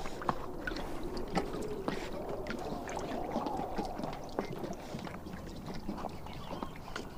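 Horses drinking water from a trough, with scattered small clicks and knocks throughout.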